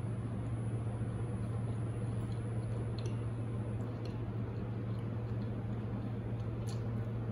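Steady low machine hum with a thin high-pitched whine above it and a few faint clicks.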